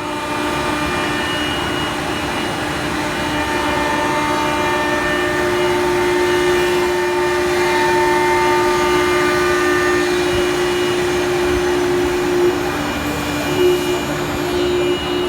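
CNC router running steadily, its spindle and vacuum hold-down table giving a continuous mechanical whine and rush with a steady mid-pitched hum.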